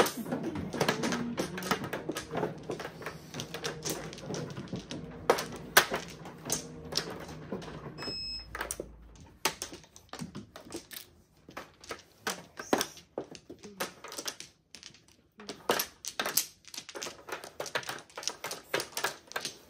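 Mahjong tiles clacking and clicking on the table in quick, irregular taps during play. A low steady hum runs under the first eight seconds, and a short beep sounds about eight seconds in.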